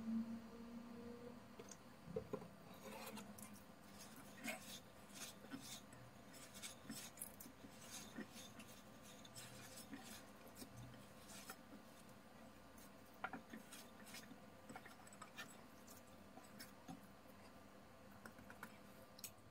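Faint squishing and scraping of greased hands kneading soft dough in a glass bowl, with scattered light clicks against the glass.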